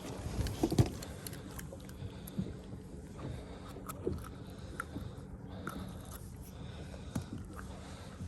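Scattered knocks, clicks and handling noises aboard a small fishing boat, over a steady low hum, with a cluster of louder thumps about half a second to a second in.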